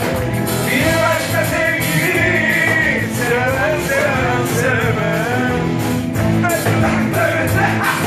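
Live pop band playing, electric guitar and drum kit, with a voice singing over it.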